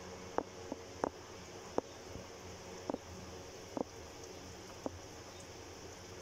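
Pink coolant dripping from the opened radiator drain plug, about seven single drops landing at irregular intervals over a faint steady hum.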